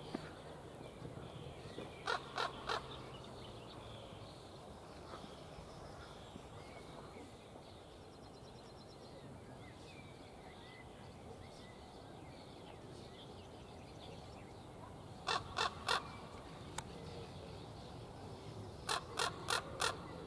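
Common raven calling in quick runs of short croaks: three together about two seconds in, three more about fifteen seconds in, and four near the end.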